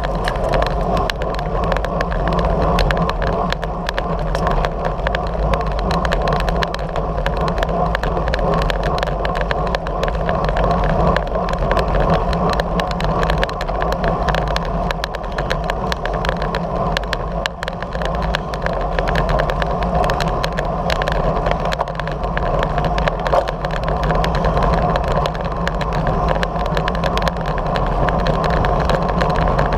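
Steady wind rush on the microphone and tyre hum of a road bicycle rolling along asphalt at speed.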